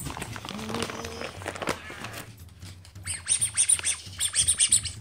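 Rustling and scratching of a plastic bag of dog toys, then a squeaky dog toy squeezed over and over in the last two seconds, about five high squeaks a second.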